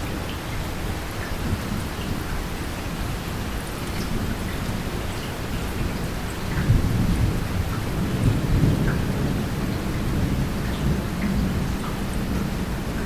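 Steady rain falling with scattered drop ticks, and thunder rumbling low underneath, swelling about halfway through and rolling on to the end.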